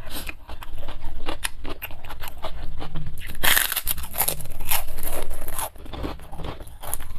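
Kerupuk, the crisp Indonesian crackers, being bitten and chewed close to the microphone: a run of irregular crunches. The densest, loudest crunching comes about three and a half seconds in.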